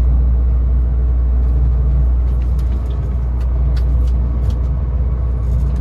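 Steady low rumble inside a tower crane's cab in strong wind, with faint scattered clicks and ticks over it.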